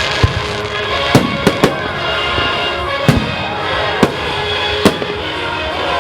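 Display fireworks bursting in the sky, about seven sharp bangs spread unevenly through the few seconds, with music playing steadily underneath.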